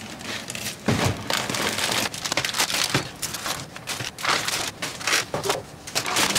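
Plastic grocery packaging and a reusable shopping bag rustling and crinkling as groceries are unpacked onto a counter, with many short irregular crackles and light knocks.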